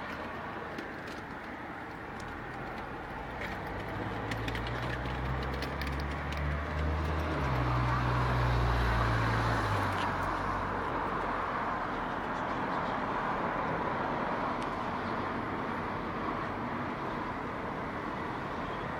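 Street traffic noise, with a large vehicle's engine passing low and loudest about eight seconds in, then the steady traffic rumble going on.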